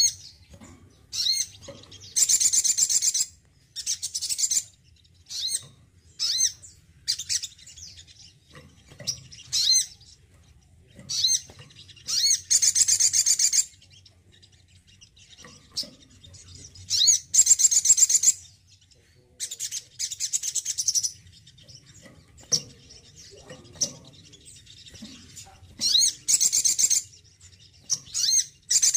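Male sunbird singing: bursts of high, rapid twittering trills about a second long, separated by short sharp chirps and brief pauses, repeated again and again. This is vigorous, full song ('gacor').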